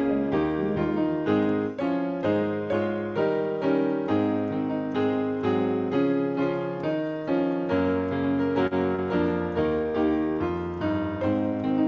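Solo piano playing a slow, gentle instrumental piece, with notes and chords struck in a steady flow about twice a second.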